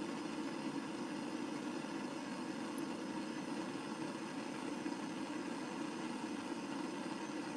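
Blowtorch flame burning steadily on a small setting, heating borax-fluxed metal to melt and run solder.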